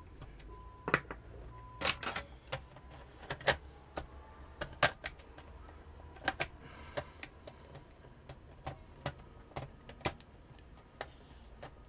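Irregular sharp clicks and knocks of a mini PC's top cover being lowered onto the chassis and pressed and slid into place, with the loudest knock about five seconds in.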